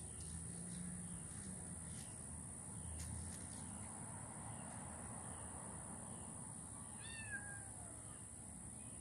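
A cat meowing: one clear meow that falls in pitch about seven seconds in, then a fainter, lower one just after, against a faint steady background hiss.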